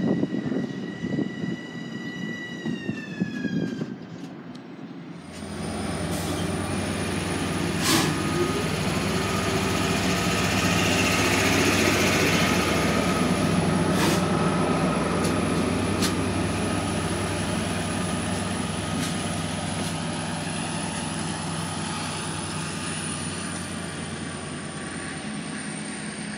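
LIRR M7 electric train running past with its high motor whine dropping in pitch. About five seconds in, this gives way to an LIRR DM30AC diesel locomotive hauling double-decker coaches close by: a steady diesel drone with a high steady tone over it and a few sharp clicks, swelling and then slowly fading.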